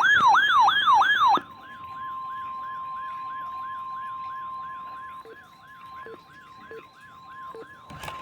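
Weather-alert siren sweeping rapidly up and down, about three sweeps a second, loud at first. About a second and a half in it drops back beneath a steady single-pitch tone, the 1050 Hz NOAA Weather Radio warning alarm tone that opens a tornado watch broadcast. A short click comes near the end.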